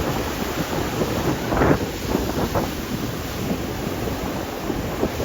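Wind buffeting the microphone over the wash of sea waves on the shore, a steady rushing noise.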